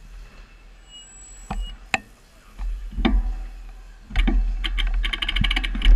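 A bicycle's rear freewheel hub ratcheting in a rapid, even run of ticks as a wheel turns, over a low rumble that starts about four seconds in. A few sharp clicks and knocks come earlier.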